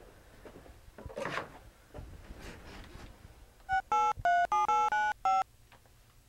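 Cordless phone keypad beeping as a number is dialled: about seven short, loud tones in quick succession, each at its own pitch, over under two seconds near the end.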